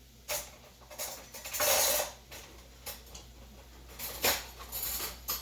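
Kitchen things being handled and rummaged through: a string of short clatters and knocks, with one longer rattle about two seconds in.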